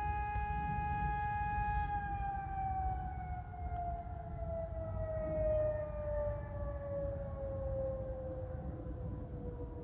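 Civil defence siren holding a steady tone, then, about two seconds in, slowly falling in pitch as it winds down.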